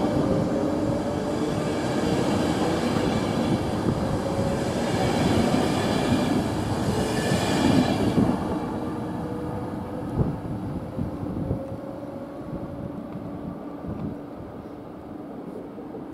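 Czech Railways passenger coaches rolling past as the train pulls out: wheel and rail noise with thin, slowly rising tones. The noise fades from about eight seconds in as the last coach clears, leaving a few knocks.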